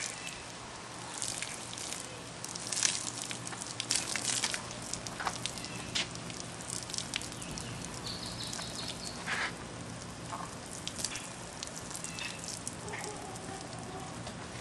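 Water from a plastic watering can sprinkling onto garden soil and leaves: a steady patter with many small scattered ticks.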